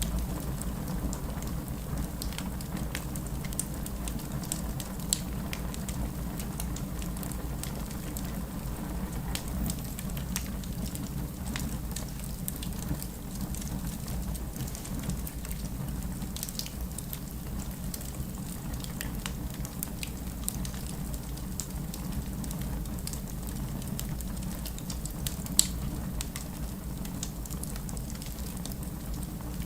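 Wood fire burning in a fireplace: a steady low rumble of flames with scattered crackles and pops, a louder pop about five seconds in and the sharpest one near the end.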